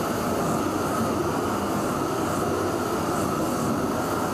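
Steady, even rushing hiss of workshop equipment while patina is applied to a bronze sculpture, with no breaks or strokes.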